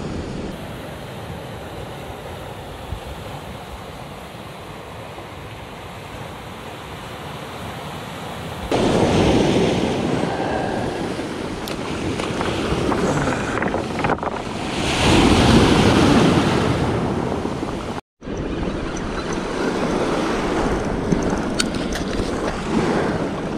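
Sea surf washing up a pebble beach, with wind buffeting the microphone; the wash grows louder about a third of the way in and swells again past the middle, and the sound cuts out for an instant near the end.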